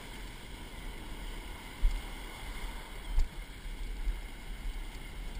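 Ocean surf breaking and washing in the shallows, with wind buffeting the microphone. Two brief thumps come about two and three seconds in.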